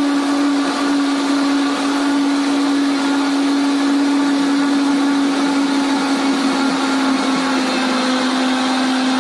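Vitamix 5300 blender's 2.2 HP motor running at a steady speed with an even whine, blending a thick fruit-and-beet smoothie in its 64-ounce container while the tamper pushes the contents down onto the blades.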